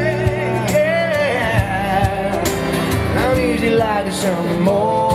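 A small acoustic band playing live: a man sings a held, sliding vocal line without clear words over acoustic guitar, upright double bass and a steady percussion beat.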